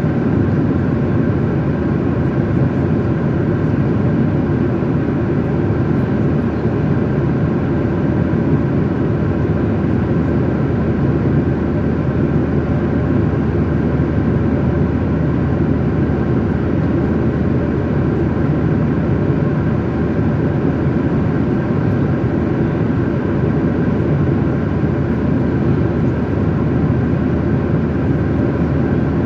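Airliner cabin noise in flight: a steady, unchanging rumble of the engines and the airflow, with a faint steady hum above it.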